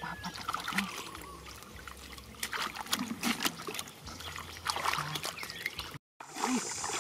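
Hands sloshing and splashing in shallow muddy water, with water trickling and dripping, as people feel through the mud for fish by hand. Irregular small splashes, a brief cut about six seconds in, then a louder splash.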